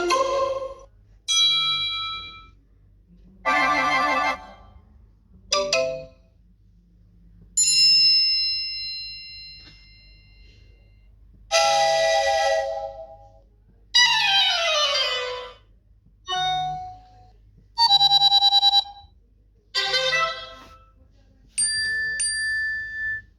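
iPhone tones previewed one after another: about ten short electronic chimes and jingles, each a second or two long, with brief pauses between them. One in the middle is a falling sweep, and a later one is a fast trill.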